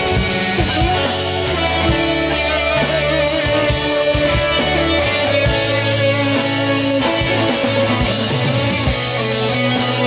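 Live classic rock band playing: electric guitars and bass over a drum kit keeping a steady beat, amplified through a PA.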